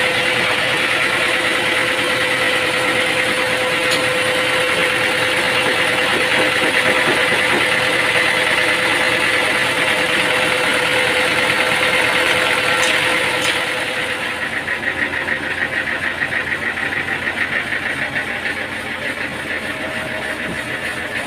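A machine's engine running steadily. About two-thirds of the way through it drops in level and takes on a fast pulsing beat.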